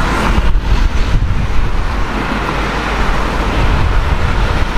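Volkswagen Scirocco 2.0 TSI's turbocharged four-cylinder running through an aftermarket exhaust as the car drives off, with the steady noise of road traffic around it.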